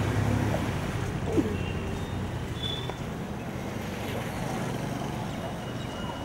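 City street ambience: a steady rumble of passing traffic, with one short sharp knock about a second and a half in.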